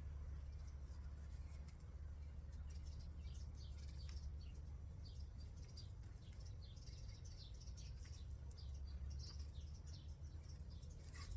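Small birds chirping in quick, repeated high notes, over a steady low hum.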